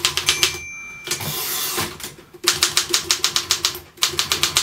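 Royal KMM manual typewriter being typed on: a few quick key strikes, then a single bell ring, a swishing carriage return about a second in, and typing resuming at about six keys a second.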